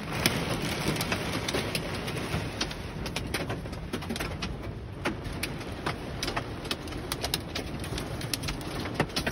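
Hail and heavy rain pelting a car's roof and windshield, heard from inside the cabin: a dense, steady rush with many sharp, irregular clicks of stones striking.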